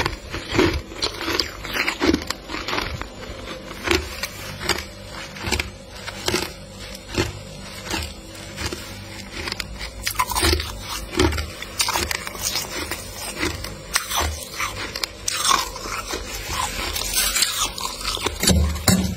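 Thick freezer frost crunching in a quick, uneven run of crisp crunches, about one or two a second.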